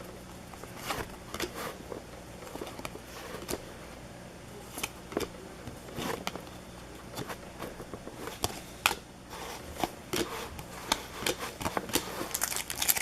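Baseball cards being handled and flipped through: scattered light clicks and slides of card stock, some sharper snaps near the middle and end, over a steady low hum.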